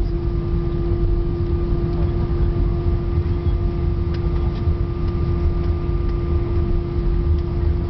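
Cabin noise inside an Airbus A319 airliner: a steady low rumble with a constant droning hum, and a few faint clicks about halfway through.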